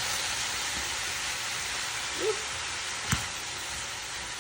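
Cabbage and green beans sizzling steadily in a hot pan as they stir-fry, with a single utensil knock about three seconds in.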